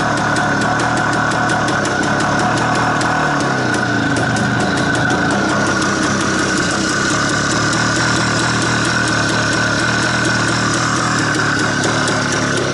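IZh motorcycle's single-cylinder two-stroke engine (an IZh-56 bottom end with a Planeta-3 cylinder) running steadily just after a cold start at about −8 °C, still on the enrichener as it warms up. Its muffler is clogged, which the owner blames for the strained running.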